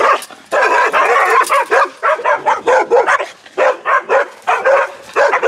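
Guard dogs barking hard behind a fence: a longer run of barking near the start, then sharp barks in quick succession, about three a second.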